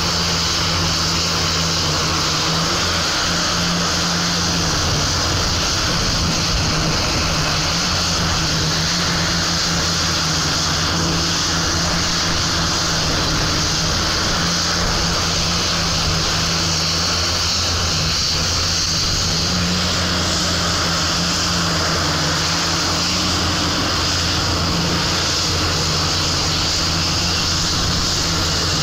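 Heavy machine's engine running steadily under load, a constant drone with a hum whose pitch shifts slightly now and then.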